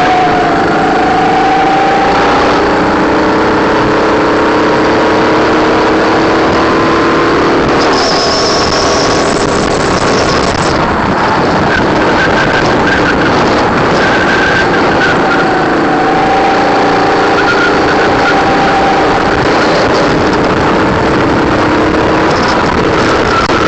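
Racing kart engine heard onboard at racing speed, its pitch rising slowly as it pulls out of corners and easing off in between, over steady rushing noise.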